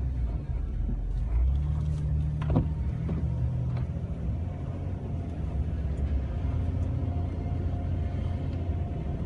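Jeep Wrangler's engine and drivetrain running as the Jeep makes a turn and drives on through snow, heard from inside the cab as a steady low drone. The engine note shifts a little with the throttle.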